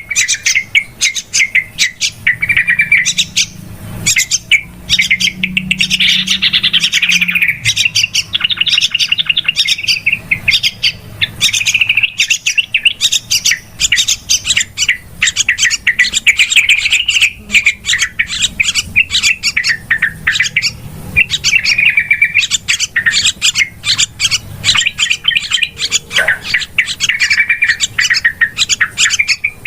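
Yellow-vented bulbuls (trucukan) chattering busily: a dense, unbroken stream of rapid chirps and bubbly trills, a bird-lure call recording.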